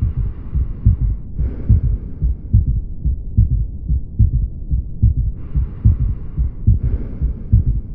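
Recorded heart sounds: a repeating run of low, dull thuds, each cycle carrying an extra third heart sound (S3) just after the two normal beats, giving a gallop rhythm.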